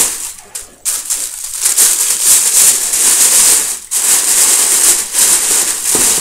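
Tissue paper crinkling and rustling as it is handled and pressed into a cardboard box, a continuous crackle with a short break just under a second in and a brief dip near four seconds.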